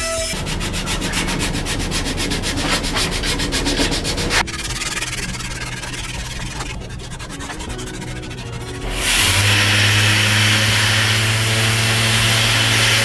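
Sanding in several cut-together takes. From about nine seconds a power sander runs louder, with a steady motor hum under the abrasive hiss.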